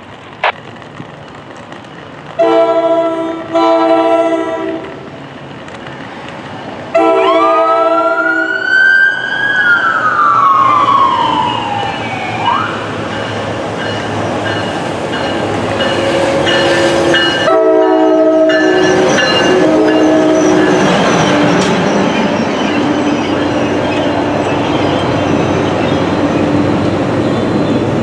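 NJ Transit commuter train sounding its horn in several blasts as it approaches, two short, one long and two more later, followed by the rumble of the train running through the station.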